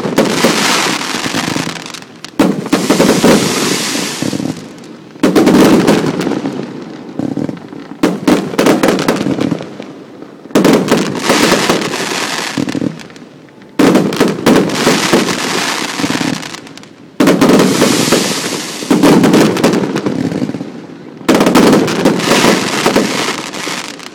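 Fireworks going off in repeated volleys. Each volley opens with a sudden loud report and trails into dense crackling that fades over two to three seconds, with a new volley every two to three seconds.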